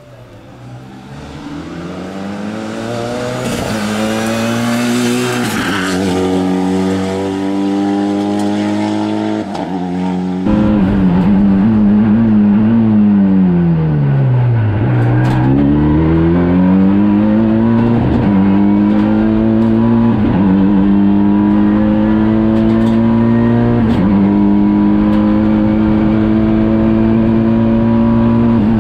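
Renault Clio E1 Turbo hillclimb car's 2.0-litre turbo four-cylinder from the Mégane RS, accelerating hard and climbing through several upshifts. It is heard first from the roadside; about a third of the way in the sound switches to inside the cockpit, where the engine note drops sharply as the car slows for a bend and then climbs through the gears again.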